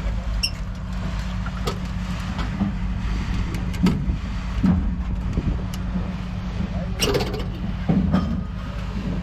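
A steady low hum from an idling vehicle engine, with scattered short clicks and knocks of metal scrap being handled.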